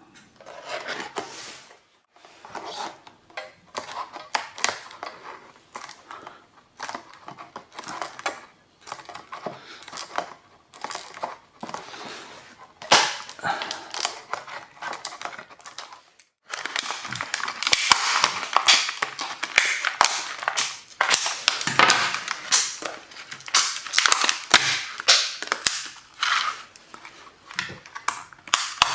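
Retail packaging being opened by hand: a run of sharp crackles, snaps and clicks, scattered at first and much busier and louder from a little past halfway.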